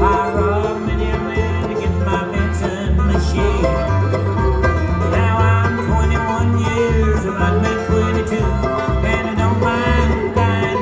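Bluegrass band playing an instrumental break: rapid banjo picking and guitar over a steady pulsing bass line.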